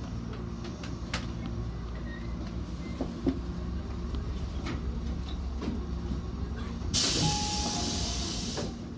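Electric commuter train creeping to a halt at the end of its line, with a steady low rumble and a few sharp clicks. About seven seconds in comes a loud hiss of compressed air lasting nearly two seconds as the train stands at the stop.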